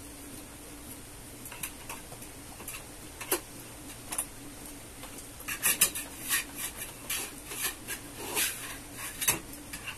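Small metal hand tool clicking, clinking and scraping against the bolts and brackets of a gaming chair during assembly. The clicks are scattered at first, then come thick and louder over the second half.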